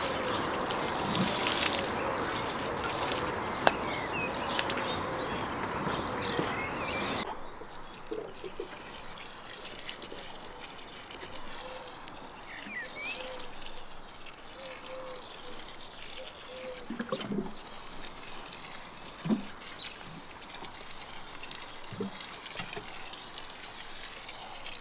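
Liquid manure pouring from a plastic watering can and splashing onto mulched garden soil. The trickle is loud for about the first seven seconds, then suddenly much quieter, with a few faint bird chirps and soft knocks after that.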